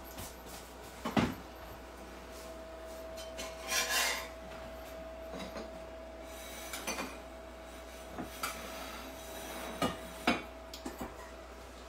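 Cookware being handled at the stove: scattered knocks and clinks, the sharpest about a second in, and a scraping rub about four seconds in, over a faint steady hum.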